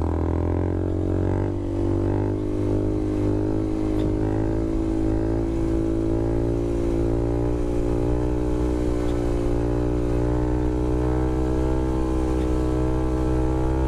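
Honda Grom's 125 cc single-cylinder engine pulling at steady, fairly high revs under way, one held note that wavers only slightly.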